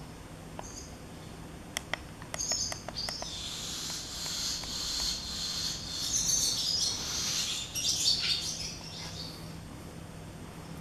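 A few quick clicks of the e-bike LCD display's buttons being pressed, then several seconds of high, irregular chirping.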